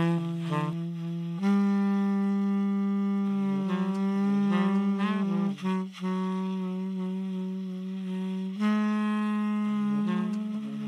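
Saxophone playing a slow melody in long held notes, changing note every few seconds.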